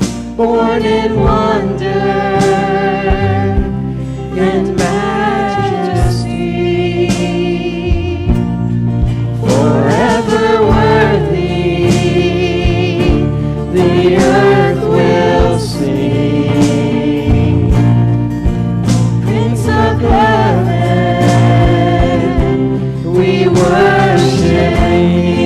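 Church worship music: several voices singing a song with instrumental accompaniment, the voices wavering in vibrato over sustained low instrument notes.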